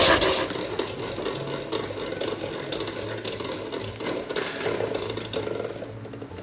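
Honey extractor spinning frames of honey: a mechanical whir and rattle over a low hum, getting steadily quieter over a few seconds as it runs down.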